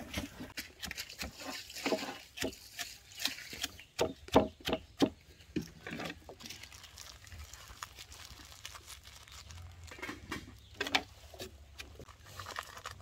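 Stone pestle knocking and pounding in a small stone mortar: a run of irregular taps and knocks, thickest in the first half, sparser after.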